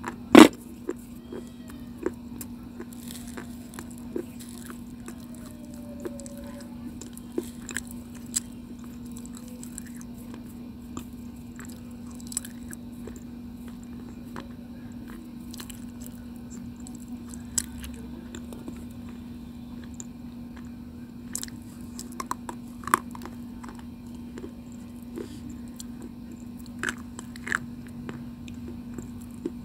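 Close-miked chewing and crunching of chalky white slate stone: scattered sharp crunches with soft mouth sounds between them, the loudest about half a second in. A steady low hum runs underneath.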